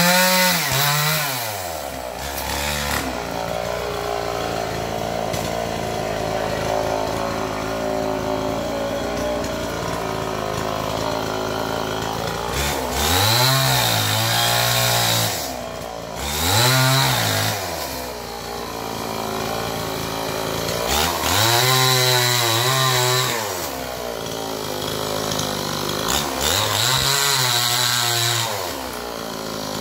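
Two-stroke chainsaw cutting into an oil palm trunk, its engine revving up and back down about five times, running at a lower steady speed in between.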